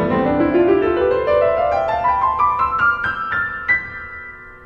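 Background piano music: a run of single notes climbing steadily up the keyboard, ending on a high note a little before the end that rings and fades away.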